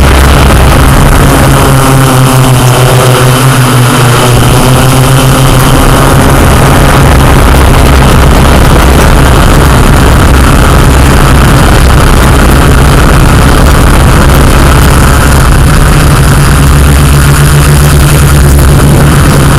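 Yuneec Q500 quadcopter's electric motors and propellers running in flight, a loud, steady hum from close up that is clipped and distorted. The pitch shifts briefly a couple of seconds in as the motors change speed.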